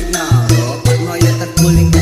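Background music with a steady beat, bass notes and a singing voice.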